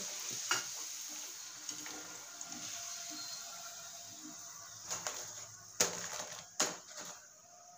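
Puris sizzling as they deep-fry in hot oil, the hiss fading toward the end as they are lifted out. A few sharp clicks in the second half, the wire-mesh strainer knocking against the pan.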